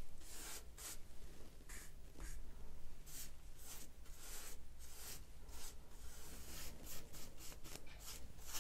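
A paintbrush loaded with chalk paint stroking back and forth along the edge of a pine drawer. It makes a dry, scratchy brushing in quick, uneven strokes, two or three a second.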